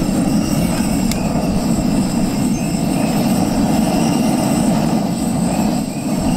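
Single-burner propane camp stove on a 1 lb canister, just lit and burning with a steady, even rushing sound, with one click about a second in.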